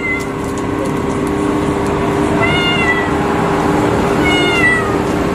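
Calico kitten meowing twice, short high-pitched calls that bend down in pitch at the end, about two and a half seconds in and again a little past four seconds, over a steady background hum.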